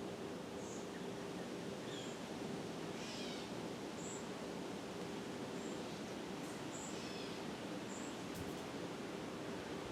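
First-generation Fasco Charleston drop-flywheel ceiling fan running steadily on medium speed: an even motor hum with a rush of air. Short high chirps come and go over it every second or so.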